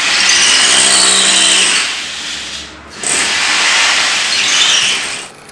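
Electric drill boring into the wall, run in two long spells with a short pause between, its motor pitch held steady under a loud grinding noise.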